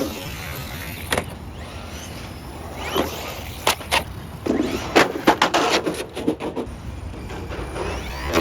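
Off-road RC car on a jump ramp: single sharp knocks and clatters about a second in and around three to four seconds in, then a rapid run of hits and rattles in the middle, as the car hits, lands and tumbles. Under it all runs a steady low rumble.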